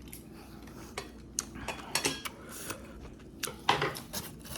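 Metal utensils clinking and scraping against dishes: a series of separate knocks, one about two seconds in with a brief ringing tone, the loudest ones near the end.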